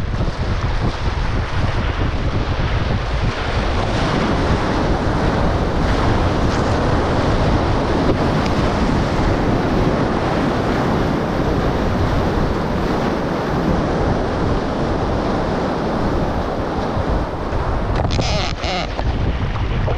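Rushing whitewater and spray around an OC1 outrigger canoe riding a breaking wave, with wind buffeting the camera's microphone in a loud, steady rush. A short burst of splashing near the end.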